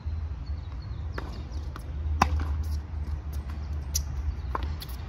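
Tennis ball struck by rackets and bouncing on a hard court during a rally: a series of sharp pops a second or so apart, the loudest about two seconds in, over a steady low rumble.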